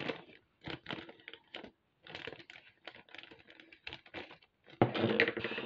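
A clear plastic bag of glass seed beads being handled: the plastic crinkles and the beads inside shift with irregular small clicks, which turn denser and louder near the end.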